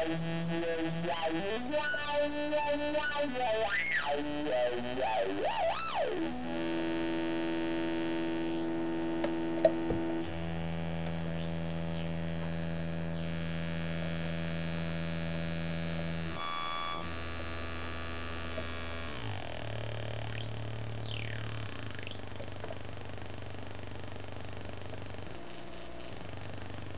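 Auduino granular synthesizer, an Arduino Uno in pentatonic mode heard through an LM386 'Little Gem' amplifier, played by turning its knobs: a buzzy tone rich in overtones that steps quickly through notes and sweeps up and down for the first several seconds, then holds long steady drones that shift pitch every few seconds, with a brief click near ten seconds in and a falling sweep about three quarters through.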